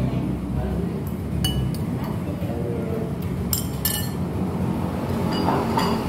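Metal spoon clinking against a porcelain soup bowl while eating: a handful of short, sharp clinks, in pairs about a second in and again just past the middle.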